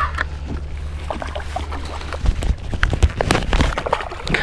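Small hooked largemouth bass splashing and thrashing at the water's surface, a string of irregular splashes that come thickest in the second half.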